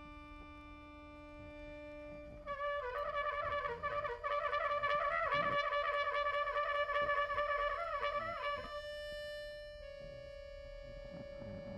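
Trumpet and accordion in a contemporary chamber piece: the accordion holds a steady chord, then about two seconds in the trumpet enters louder, playing a quickly wavering, wobbling line around one pitch for about six seconds. After it stops, the accordion holds a single higher note.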